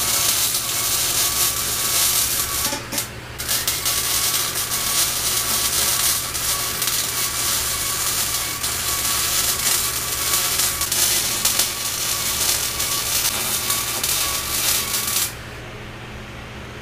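MIG welder arc crackling steadily as a bead is laid on a steel drum, with a short break about three seconds in. The arc stops about fifteen seconds in, leaving a low steady hum.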